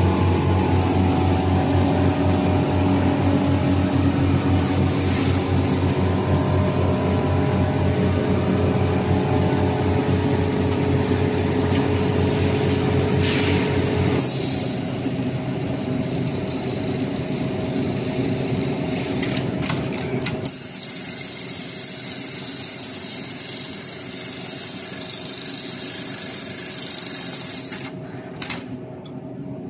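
HighTex MLK500-2516ECO automatic pattern sewing machine stitching heavy harness webbing, with a fast, even needle rhythm and two short bursts of hissing air. About halfway through the stitching rhythm stops, leaving a steadier, quieter machine noise.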